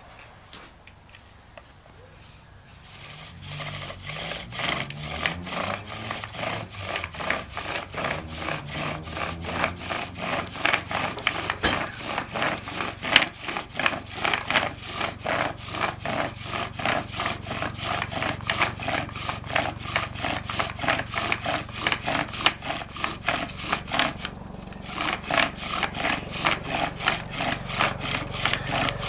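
Bow drill friction fire-making: the wooden spindle grinding in the hearth board's notch with each pass of the bow, a steady run of rhythmic wood-on-wood rasping, several strokes a second. It starts a few seconds in, stops briefly near the end, and starts again. These are the slow, steady, long strokes that build up the dust pile until it smokes.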